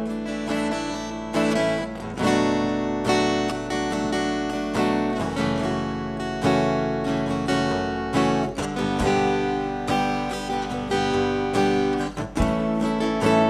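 Live worship band playing an instrumental passage without singing, led by a strummed acoustic guitar over a steady band backing.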